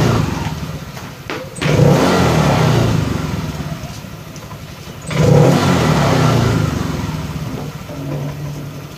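Honda Vario scooter's fuel-injected single-cylinder engine blipped twice with the air filter removed, each snap of the throttle revving up sharply and then settling back toward idle. The engine keeps running and follows the throttle, which traces the stalling on sudden acceleration to a clogged air filter.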